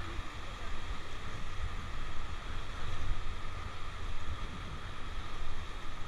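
Steady rush of whitewater around an inflatable raft, with wind rumbling on the microphone.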